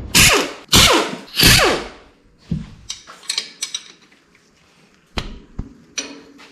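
Tools and metal engine parts being handled during an engine teardown: three loud scraping, clattering bursts in the first two seconds, then lighter clicks and a couple of sharp knocks.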